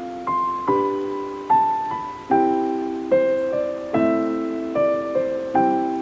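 Slow, gentle piano music, a new note or chord struck a little under once a second, each ringing out and fading before the next.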